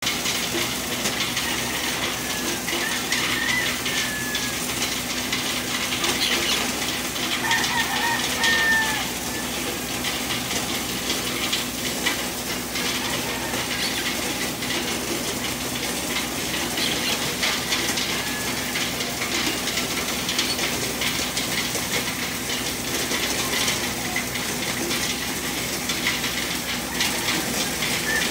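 Corn sheller running steadily: a continuous metallic clatter and rattle of shelling corn over a steady machine hum, with a few short chirps a few seconds in.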